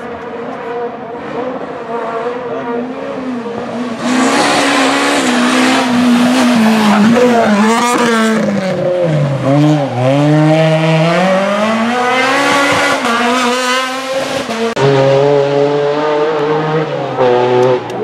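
Rally car engine working hard. It approaches, drops its revs through several downshifts with a few sharp bangs as it brakes for a hairpin, then revs rise steadily as it accelerates away through the gears.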